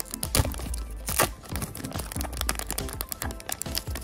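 A foil trading-card booster pack is torn open and crinkled by hand. There are two sharp rips, about half a second in and just after a second, and many small crinkles and clicks of the foil and cards after them. Background music plays underneath.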